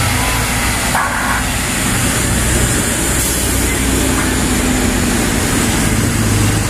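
Mercedes-Benz OH 1626 coach's diesel engine running with a steady low rumble as the bus moves slowly at walking pace.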